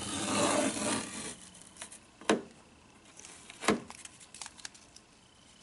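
Rubbing and rustling handling noise for about a second, then two sharp clicks about a second and a half apart, with a few fainter ticks.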